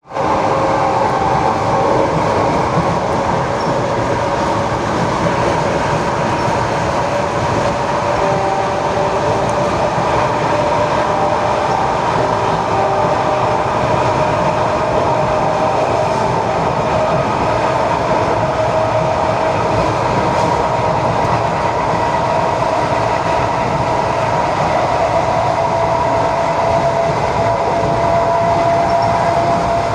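ED4M electric multiple unit running along the line, heard from on board: a steady rail rumble with a whine from the traction motors and gearing, its pitch rising slightly near the end.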